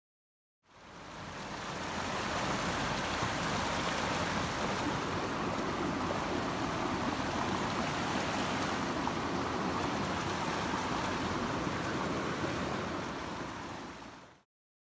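Steady rushing noise, like running water or wind, that fades in about a second in and fades out near the end.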